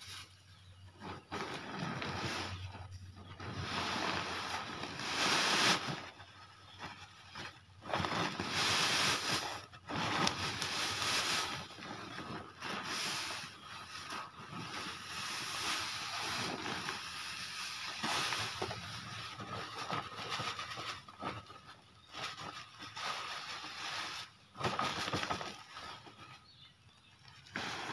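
Granular chemical fertilizer poured from a woven plastic sack onto a heap on a plastic tarp: a grainy rush of falling granules in several uneven surges, with the sack's plastic rustling and crinkling between them.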